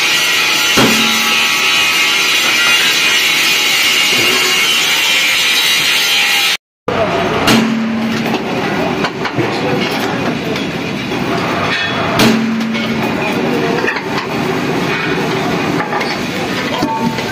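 Steady, loud running noise of a heavy drilling machine working a steel truck wheel disc, with three sharp metal clanks that ring briefly: one about a second in and two more later. A short dropout cuts the sound off about a third of the way through.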